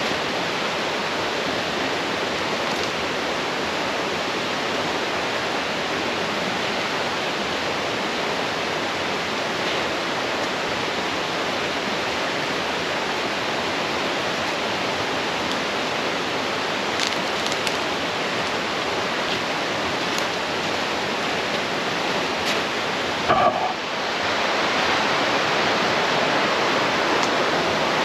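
A mountain brook swollen with snowmelt and rain, its water rushing steadily. A brief knock comes about 23 seconds in, after which the rushing is a little louder.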